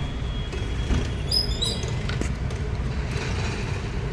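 Steady low rumble of a motor vehicle, with a short run of high chirps about a second and a half in.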